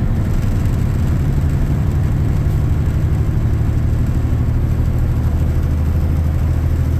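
Semi truck's engine running steadily under way, a deep drone heard from inside the cab with road noise over it.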